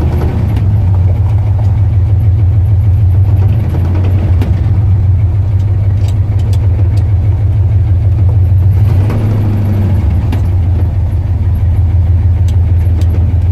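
1974 Ford F250 pickup's engine running as the truck is driven, a loud steady low rumble that shifts briefly about two-thirds of the way in.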